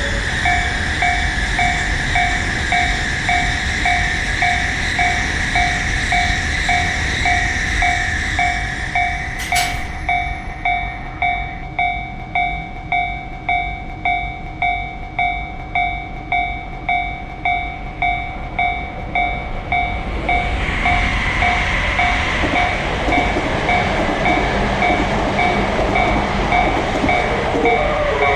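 Japanese railroad crossing warning bell ringing in a steady kan-kan rhythm, about three strikes every two seconds, over the noise of a passing train. The train noise eases about ten seconds in, and another train's noise swells about twenty seconds in.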